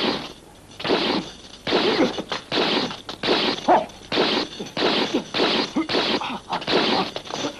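Kung fu film fight sound effects: a rapid series of punches, blows and swishes, about two a second, with a few short yells among them.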